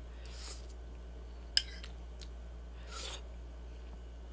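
Faint sounds of someone eating custard pudding from a spoon: soft mouth noises and two sharp clicks, over a steady low hum.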